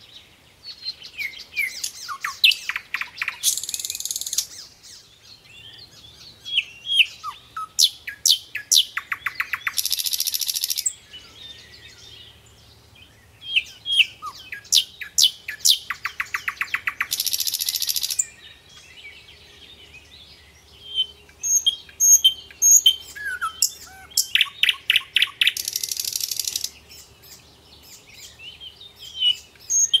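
Small cage birds chirping, one of them singing the same song phrase four times: a string of short falling chirps, then a rapid rattling trill and a harsh buzzy hiss about a second long.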